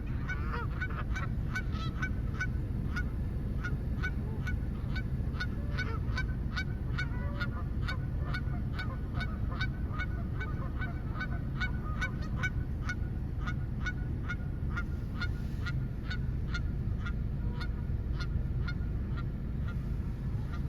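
Geese honking continually, short calls coming about two or three a second, over a steady low rumble.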